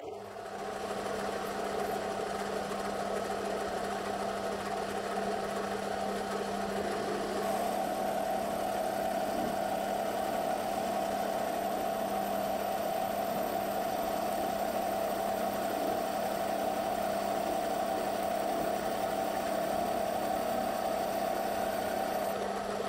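Metal lathe starting up and running steadily with a smooth hum while the cutting tool turns down a silver metal bar. A faint high whine joins about seven seconds in.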